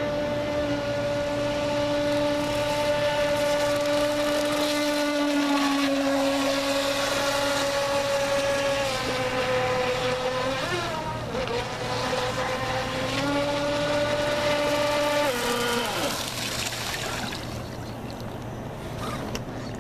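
The brushless electric motor of a Pro Boat Shockwave 26 RC speedboat running at speed with a steady high whine. Its pitch dips twice as the motor slows, about a quarter of the way in and again near the middle, climbs back, then falls and stops about four-fifths of the way through, leaving a light hiss.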